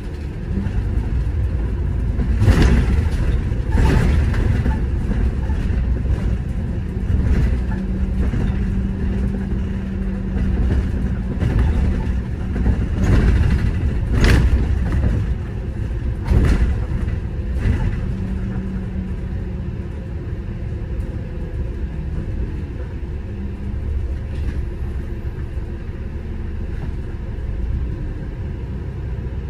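City bus driving: a steady low rumble of engine and road, with a string of sharp knocks and rattles from bumps. A steady engine hum holds for about ten seconds in the middle.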